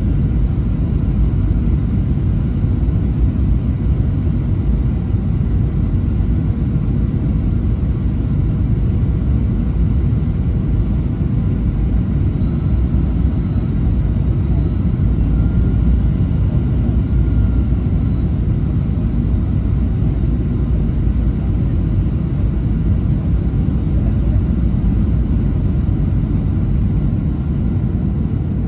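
Airplane cabin noise in flight: a steady, loud, low rumble of engines and airflow, with faint thin high whining tones that drift slightly in pitch midway.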